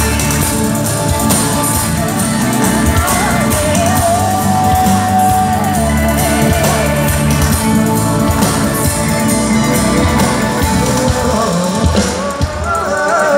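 Live pop band performance heard from within the crowd on a phone microphone: full band with drums under a sung vocal, which holds one long note a few seconds in.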